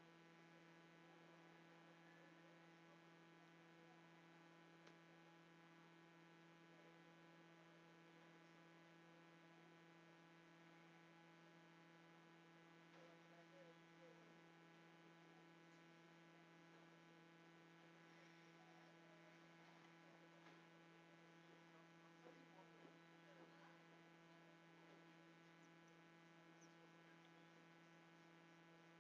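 Near silence: a steady electrical mains hum, with a few faint soft ticks in the middle.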